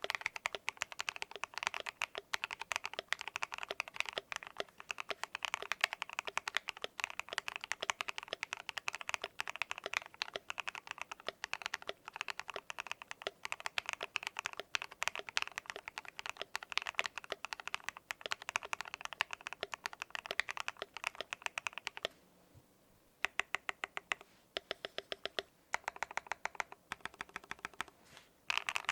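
Fast, continuous typing on a modded KBD67 MKII mechanical keyboard with lubed JWK Moss linear switches, a brass plate and PBT keycaps, a clacky yet creamy sound. About three quarters of the way in the typing stops briefly, then comes back as slower, separate keystrokes and short runs.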